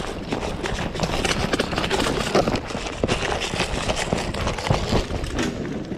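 A player's footsteps running through woodland, a fast irregular stream of thuds and rustling close to the microphone.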